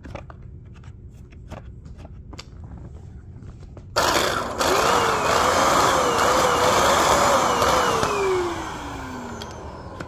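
Bissell 3-in-1 Turbo stick vacuum switched on about four seconds in, its motor and spinning brush roll running with a wavering hum. It is switched off near the end, and the motor's pitch falls as it winds down. Before it starts there are a few light handling clicks.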